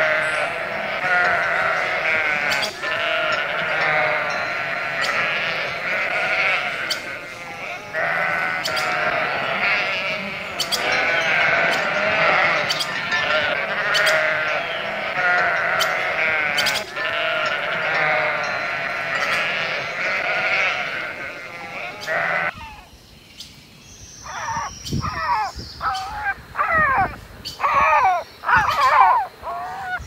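Flock of sheep bleating over one another, many calls at once without a break. About three-quarters of the way through the sound cuts off suddenly, and a sparser run of separate, shorter calls follows.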